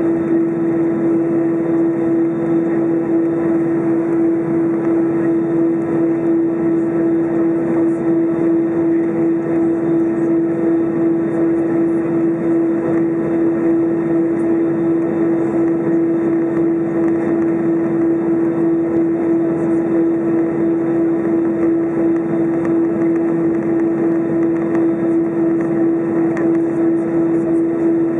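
Airbus A320 engines idling, heard inside the cabin while the airliner taxis: a steady hum and rush with one constant droning tone throughout.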